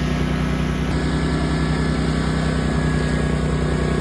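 DR mower's engine running steadily at idle, an even low drone, now that the blown fuse that stopped it from cranking has been replaced.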